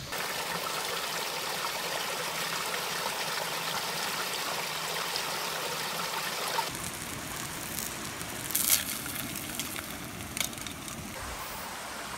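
Steady rush of flowing stream water, cutting off suddenly about two-thirds of the way in. A quieter background follows, with a few light clicks and one brief clatter.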